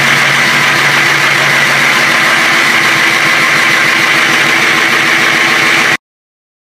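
Ford Super Duty's 6.0 Power Stroke diesel V8 idling loudly and steadily with a steady high-pitched whine over it, running again after its fuel system was primed by key cycling. The sound cuts off abruptly near the end.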